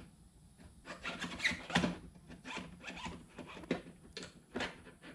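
Motorcycle front fork tube being pushed up through the triple clamp by hand: a run of short, uneven scrapes and squeaks of metal sliding in the clamp, with a brief squeal about a second and a half in.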